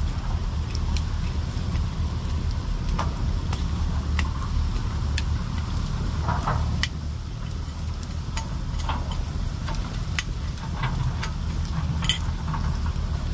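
Wood fire crackling, with irregular sharp pops and snaps, over a steady low rumble of wind on the microphone.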